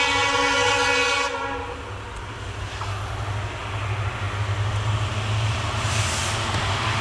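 Diesel locomotive's horn sounding a steady multi-note blast for about a second and a half, then cutting off. The engine's low drone and the rumble of the approaching train grow louder after it.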